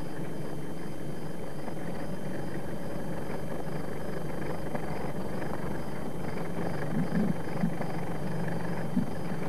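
Steady drone of an idling vehicle engine, with a few short soft thumps about seven and nine seconds in.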